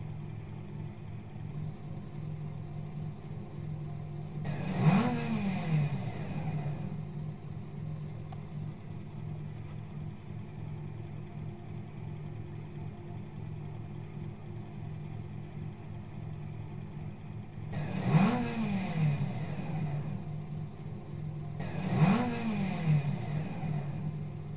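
Car engine idling steadily, revved in three quick throttle blips (about five seconds in, then twice near the end), each rising in pitch and falling back to idle.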